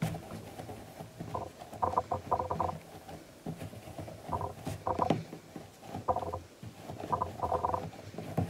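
Palms rolling a lump of air-drying clay back and forth on a wooden board: soft rubbing, with groups of short pitched creaks on the strokes.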